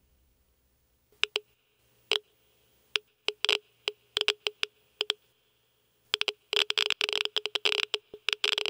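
Sharp, irregular electronic clicks, a few at a time at first, thickening into dense crackling bursts about six seconds in.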